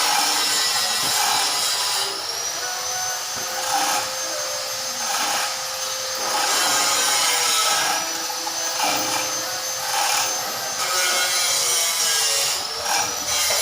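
Electric workshop machinery running: a dense, hissing mechanical noise with a high whine that rises in pitch about two seconds in and again near the end, over a steady hum.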